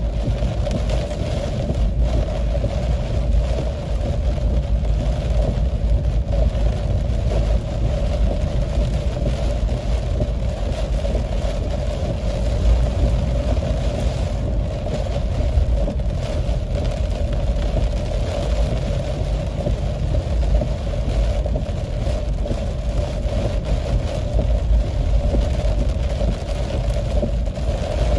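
Steady road noise inside a car driving on a wet highway in heavy rain: engine and tyres on the soaked road, with rain hitting the windscreen.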